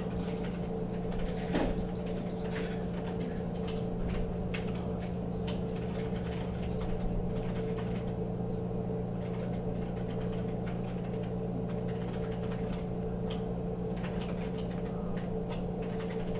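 Scattered light clicks and taps of a Phillips screwdriver and small screws being worked out of the plastic base of a receipt printer, over a steady low electrical hum.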